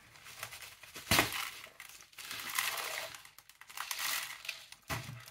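Plastic plant tub crackling and scraping as it is squeezed and worked off a tight root ball of gritty mineral substrate, with a sharp crack about a second in and a knock near the end.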